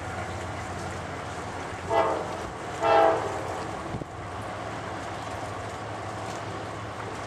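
Freight locomotive's air horn sounding two short blasts about a second apart, over a steady low hum.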